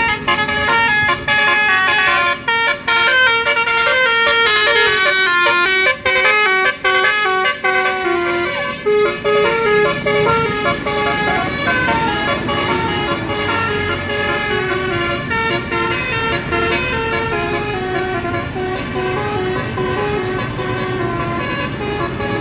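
A bus's multi-trumpet 'basuri' musical horn playing a tune, its notes changing quickly one after another, over the low rumble of the engine. Sharp clicks sound between the notes in the first half.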